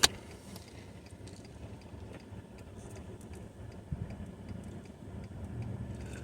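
Steady road and engine rumble heard inside a moving car's cabin, with one sharp click right at the start and a smaller knock about four seconds in.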